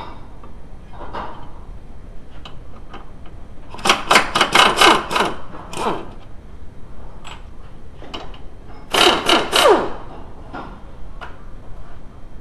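Handheld power tool working a nut on the front suspension in two short bursts of rapid rattling, about four seconds in and again about nine seconds in; the second burst ends in a short falling whine as the tool spins down. Light metal clinks of tools come between the bursts.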